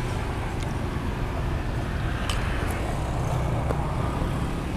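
Steady low outdoor rumble of roadside background noise, with a couple of faint clicks about two and a half and three and a half seconds in.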